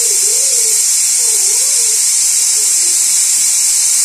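Steady hiss of steam escaping from the vent of a Prestige aluminium pressure cooker on a gas burner: the cooker is building pressure and has not yet whistled.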